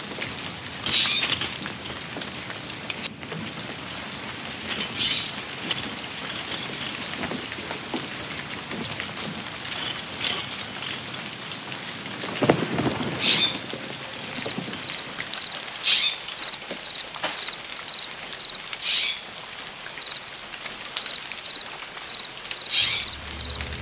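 Jungle ambience under a steady hiss like rain. A bright call repeats every few seconds, and from about halfway a short chirp repeats about twice a second. A brief low rumble swells near the middle.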